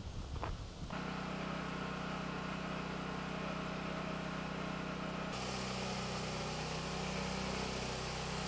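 A steady mechanical hum, like an engine or motor running evenly, after a couple of light clicks in the first second. About five seconds in the hum shifts in tone and a hiss joins it.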